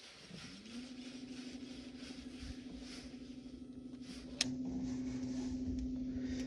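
Boat's electric trolling motor spinning up with a short rising whine, then holding a steady hum. A sharp click comes about four and a half seconds in, after which the hum is louder.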